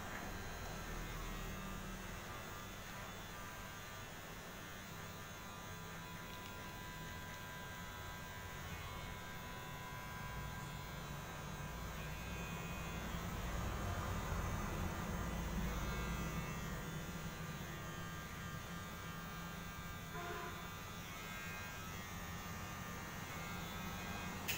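Steady low electric hum, getting a little louder midway.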